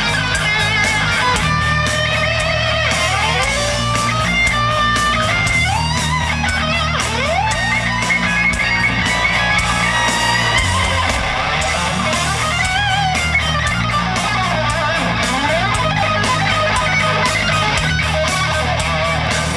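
Heavy metal band playing live: a lead electric guitar plays a solo full of bent and sliding notes over bass guitar and drums with regular cymbal hits.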